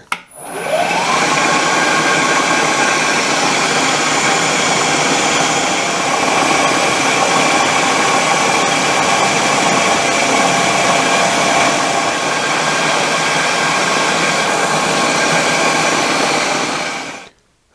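An electric motor starts, its whine rising over about a second, then runs steadily with a loud hiss as a bandsaw wheel's polyurethane tire is cut to a crown. It stops abruptly about a second before the end.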